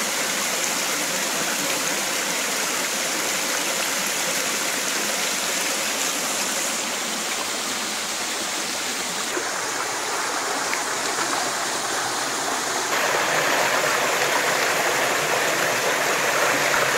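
Shallow rocky stream rushing over stones, a steady wash of water noise that grows a little louder for the last few seconds.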